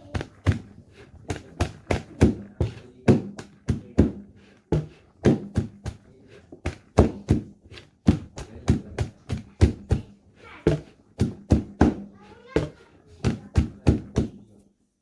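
Damp puttu flour dough being pounded in a bowl to break it into small crumbs: a long run of sharp, irregular strikes at about two a second that stops just before the end.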